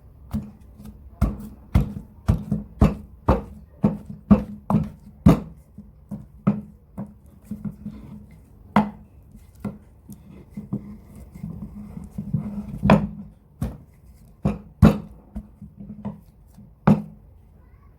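Pestle pounding black soap and herbal ingredients together into a paste, a run of sharp thuds. The strokes come about two a second at first, then thin out to irregular strokes about a second or more apart.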